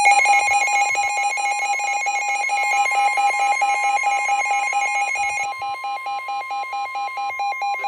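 NOAA Weather Radio warning alarm tone, a steady single-pitch tone held throughout, with rapid electronic beeping layered over it from a weather radio receiver's alert. Together they announce a severe thunderstorm warning. The beeping changes character about two-thirds of the way in.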